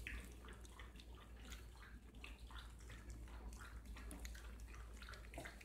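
Several puppies eating raw minced meat from one plate: a busy, irregular stream of small wet smacking and chewing sounds.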